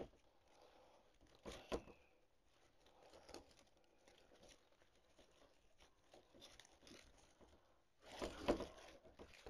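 Faint rustling and crinkling of artificial fern stems being pushed into and spread open in a grapevine wreath, with louder rustles about a second and a half in and again near the end.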